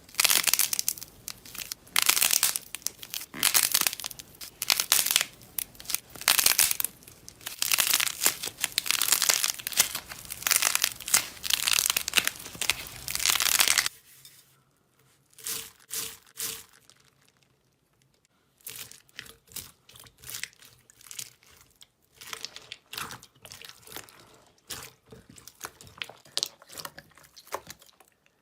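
Slime being squeezed and pressed by hand, giving dense crackling, crunching bursts. About halfway through it changes abruptly to sparser, softer pops and clicks.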